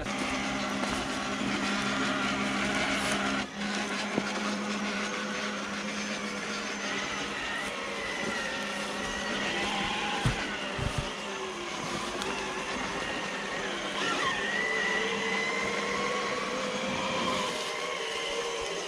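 Electric motors and gearboxes of radio-controlled rock crawlers whining, their pitch rising and falling with the throttle.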